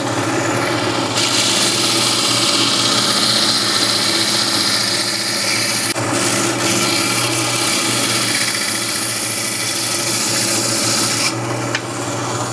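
Small coral band saw running, its blade grinding through the stony skeleton of a Duncan coral frag to clean up the base. The cutting noise starts about a second in, breaks briefly midway and stops near the end, leaving the motor's steady hum.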